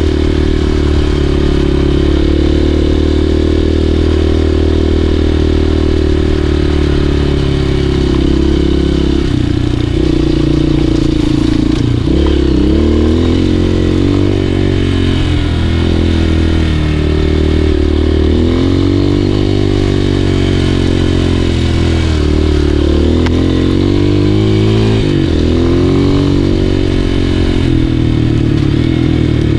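Dirt bike engine running while riding a trail, its revs rising and falling with the throttle, with several brief drops in pitch where the throttle is rolled off or a gear is changed.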